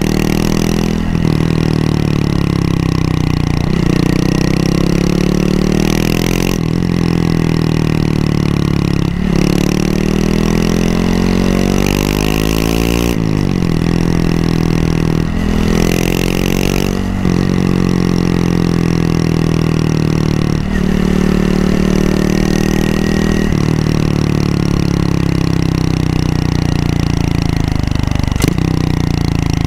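Honda Monkey 125's single-cylinder four-stroke engine under way, its note climbing and then dropping at each gear change every two to four seconds, and falling away as it slows near the end.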